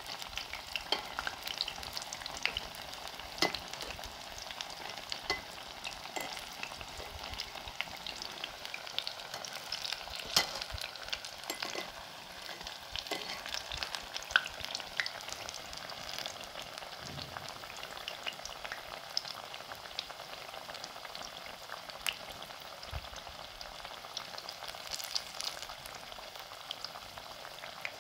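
Besan-battered potato slices deep-frying in hot oil: a steady sizzle with frequent sharp crackles and pops.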